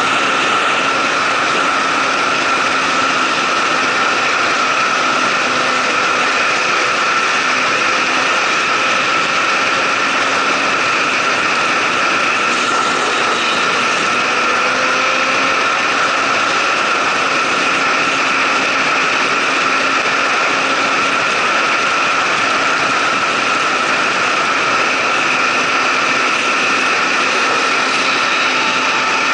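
Motorcycle cruising at a steady highway speed, its engine running at an even pitch under a constant rush of wind and road noise.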